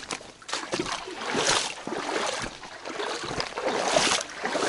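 Footsteps over stones and rustling of grass and brush as someone walks along a riverbank, in irregular noisy surges.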